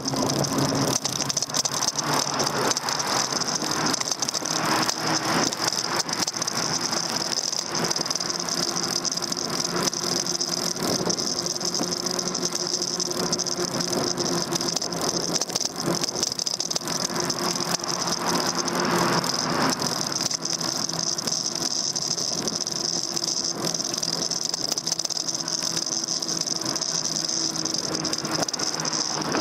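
Daymak Max e-bike riding along, heard from a handlebar-mounted camera: a continuous rattle of the bike and mount over the road, with a steady high whine and a low hum.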